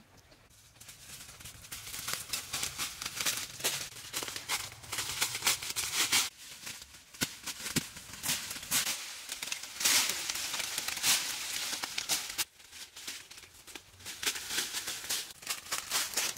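Dry leaf litter crunching and twigs and branches rustling and snapping as a person pushes through forest undergrowth: a dense crackle that thins out briefly a few times and cuts off abruptly at the end.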